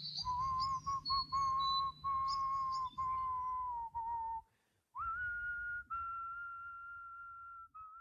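Human whistling in long held notes at nearly the same pitch, broken by a short gap about four and a half seconds in, then one long higher note that slowly fades out. High chirps sound over the first second, and a low hum runs under the whistling until the gap.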